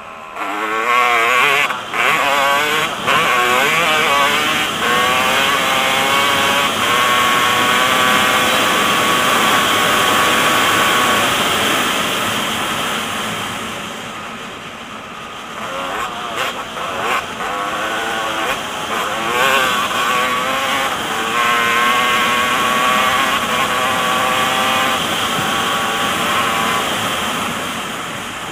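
Dirt bike engine at full throttle, its pitch rising through each gear and dropping back at each shift; it eases off about halfway through and then pulls hard again.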